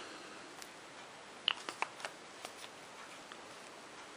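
Paper pages being handled and turned: a few faint, short papery ticks and rustles, the clearest about a second and a half in.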